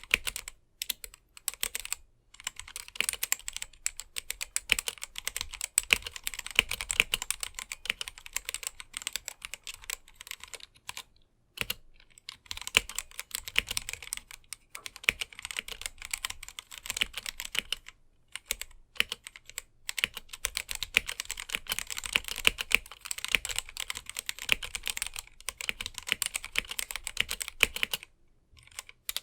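Typing on a GamaKay/Womier K87 mechanical keyboard with stock, unlubed Gateron Black linear switches: a fast, continuous run of keystroke clacks, with short pauses about eleven seconds in and near the end.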